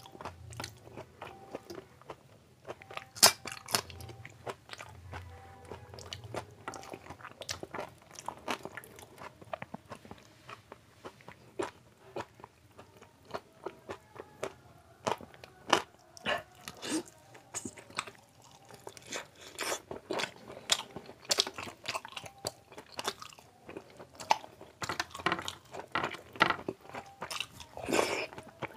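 Close-miked eating of soaked panta bhat rice and meat curry by hand: wet chewing and mouth noises with frequent irregular sharp clicks and crunching bites.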